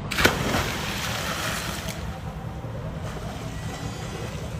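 A man diving into a river: a sharp splash about a quarter-second in, then about two seconds of churning water fading away. Under it runs a steady low rumble of motorway traffic from the bridge above.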